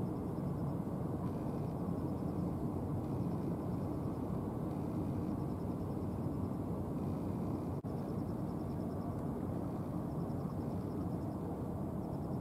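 Steady low rumble of the Ishizaki Kisen car ferry Shōyō Maru under way across the harbour, its engines and bow wake heard from shore. The sound breaks off for an instant about eight seconds in.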